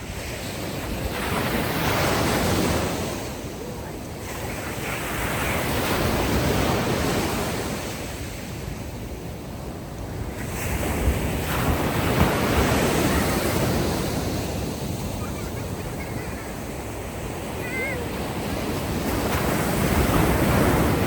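Ocean waves washing onto a beach, the surf swelling and ebbing in slow surges several seconds apart.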